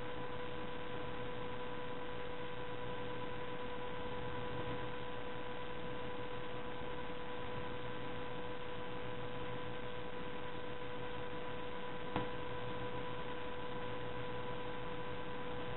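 Steady electrical hum, a pitched tone with overtones, over an even hiss, with one short click about twelve seconds in. The knotting of the strings is not heard above it.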